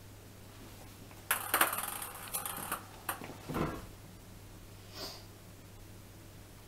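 A ping pong ball clattering and skittering over a tiled floor as kittens bat it: a burst of rapid clicks and rattles about a second in that lasts over a second, then a few more clicks and a duller thump.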